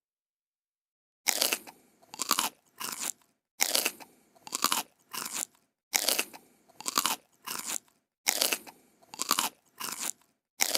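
Crunching sound effect like loud chewing of something crisp, starting about a second in and repeating in an even loop of three crunches roughly every two and a half seconds.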